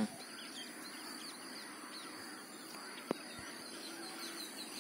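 Small birds chirping over quiet outdoor background, with a short thump at the very start as a hooked tilapia is lifted clear of the water, and a single sharp tap about three seconds in.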